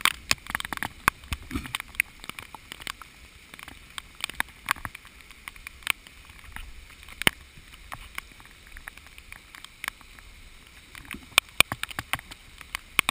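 Rain falling in a storm: irregular sharp ticks of drops striking the GoPro's waterproof housing, over a steady hiss of rain and running floodwater.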